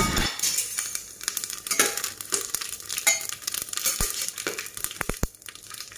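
Whole spices (bay leaves, dried red chillies, cumin seeds) sizzling in hot mustard oil in an aluminium pressure cooker, with scattered sharp crackles and a few louder pops about four to five seconds in as the spices start to splutter.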